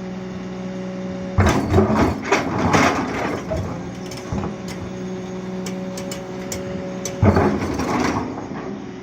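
Excavator running with a steady engine hum while its bucket digs into stony soil, with two spells of scraping and clattering rock, about a second and a half in and again about seven seconds in.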